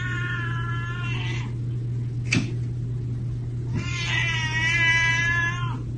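A cat giving two long, drawn-out meows, one at the start and another about four seconds in, with a short tap between them.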